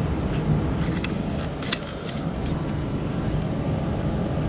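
Steady low background rumble, with a few faint clicks about a second and a half in.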